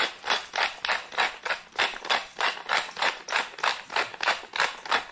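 Pepper mill grinding black peppercorns, twisted back and forth in a steady rhythm of short crunching grinds, about three a second.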